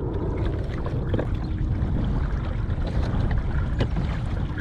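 Water lapping against a fishing kayak's hull with steady wind rumble on the microphone. A few faint clicks come through, about a second in and again near the end.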